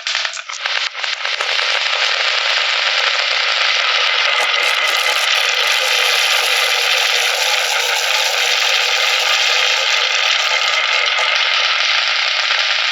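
Many marbles rolling and clattering down a HABA marble run slope in a dense, continuous rattle, with a brief lull about half a second in.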